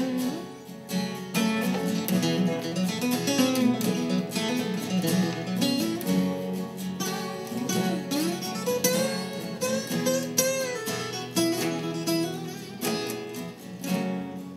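Instrumental break of a live acoustic song: acoustic guitar strummed over an acoustic bass guitar.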